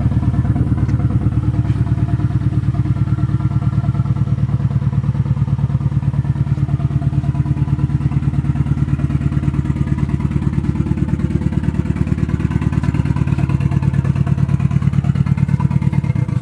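Nissan SR20DET inline-four running on its first start after installation, with a loud, rapidly pulsing exhaust note from an open downpipe; the owner questions whether it is misfiring. The engine cuts off suddenly at the end.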